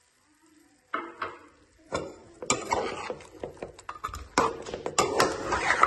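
Metal spoon stirring mutton pieces and garlic-ginger paste in a metal karahi of hot ghee: irregular scraping and knocking against the pan over the frying, starting about a second in and getting busier toward the end.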